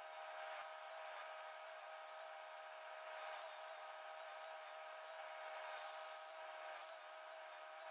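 Faint, steady hiss of a cutting torch burning through seized steel bolts, over a steady mechanical hum.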